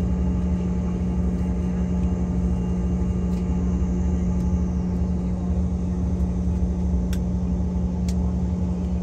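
Steady low drone of an airliner cabin, its engines and air systems running, with a constant low hum. Two faint clicks sound near the end.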